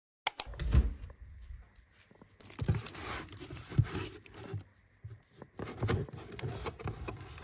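Hands rummaging in a cardboard fruit tray of pears and kiwis, with cardboard and packaging scraping and rustling and a few sharp knocks and clicks at irregular moments.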